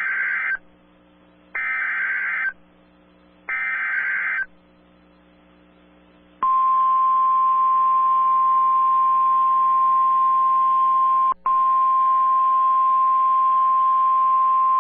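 Emergency Alert System SAME header: the end of one short data burst, then two more bursts of about a second each, a second apart. After a pause of about two seconds comes the steady single-pitch 1050 Hz NOAA Weather Radio warning alarm tone, broken once very briefly midway. Together they signal a genuine severe thunderstorm warning alert.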